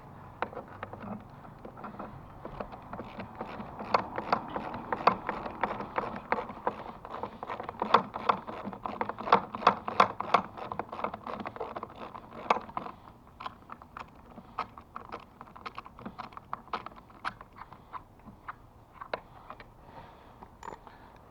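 Rapid, irregular clicking and light knocking, like hard parts or tools being handled. It is busiest through the middle and thins to scattered clicks after about twelve seconds.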